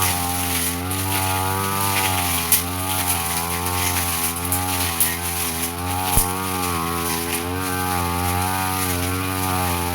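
Brush cutter engine running steadily while cutting grass, its pitch wavering slightly as the load changes, with a few sharp clicks.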